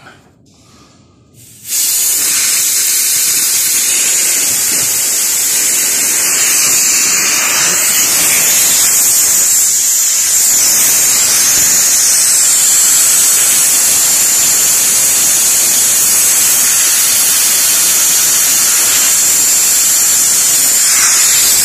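Nitrogen hissing out of a refrigeration system as its pressure-test charge is vented before evacuation: a loud, steady hiss that starts suddenly about two seconds in.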